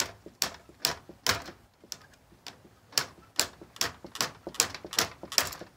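Sharp clicks and knocks, about two to three a second, from a hand tool working at the metal clamp hardware of an overhead electrical service drop, trying to free the line from its eye bolt. The clamp is not coming loose.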